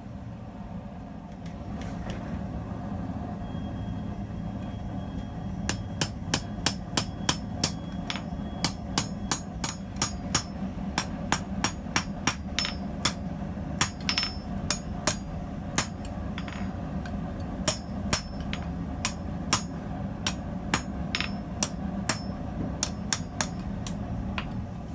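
Blacksmith's hammer striking hot steel on an anvil while forging a tong: a long run of sharp blows, about two a second, starting some six seconds in, over a steady low hum.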